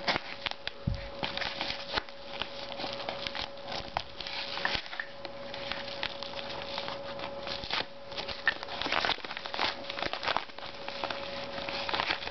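A package being opened by hand: irregular crinkling and tearing with many small rustles and clicks, over a faint steady tone.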